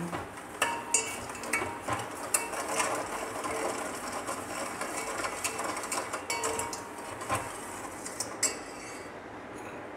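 A metal spoon stirring sugar into water in a stainless steel pan, with quick scrapes and light clinks against the bottom and sides as the sugar dissolves for syrup. The stirring thins out near the end.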